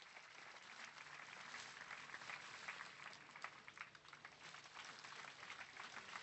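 Faint applause from a large audience: many hands clapping at once.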